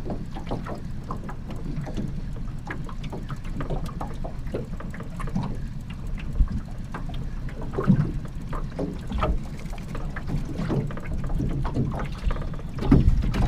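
Small aluminum boat drifting on a lake: a steady low wash of water against the hull, with many light knocks and clicks from gear being handled in the boat. Louder thumps come about 8 seconds in and near the end.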